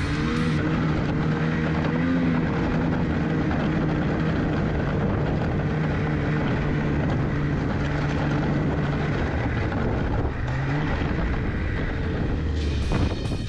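Two-stroke snowmobile engine running steadily while riding, its pitch dipping briefly and rising again about ten seconds in. Music comes in near the end.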